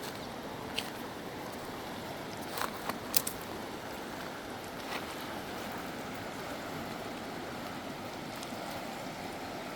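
River water flowing in a steady rush, with a few brief high chirps of swallows.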